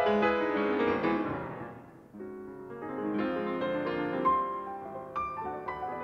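Piano music: a phrase dies away about two seconds in, then a new passage of single struck notes begins.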